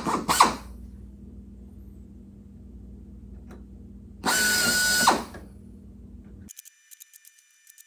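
Hand-held pneumatic air drill blipped twice, then run for about a second as it bores a #40 (3/32-inch) hole through the aluminium skin and rib flange of an aircraft tail section. It gives a steady high whine with hiss over a low background hum. Near the end the hum cuts off abruptly, leaving faint rapid ticking.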